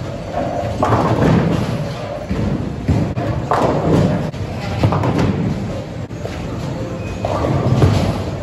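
Bowling alley noise: heavy thuds and crashes of bowling balls and pins, about four loud surges over a steady rumble.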